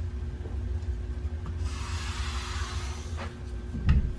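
Blue painter's tape being pulled off the roll for about a second and a half, then two light knocks, the second louder, as it is pressed down on the ebony fingerboard blank, over a steady low hum.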